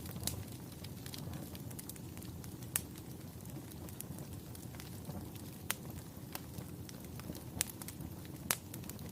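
Fire crackling: a steady low rumble of burning with sharp pops scattered irregularly through it, about five of them louder than the rest.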